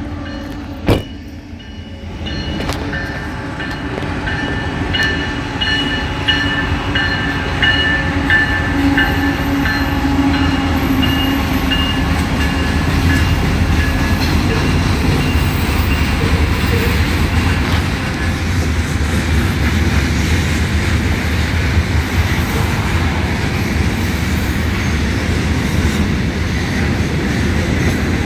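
CSX freight train passing a grade crossing. The crossing bell dings over and over through the first part, while the diesel locomotive's low rumble builds. Then covered hopper cars roll steadily over the rails with some clickety-clack. There is one sharp knock about a second in.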